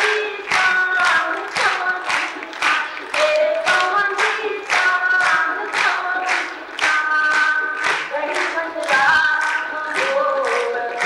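A woman singing a Sindhi folk song in a steady melodic line, over regular hand claps keeping time at about two to three claps a second.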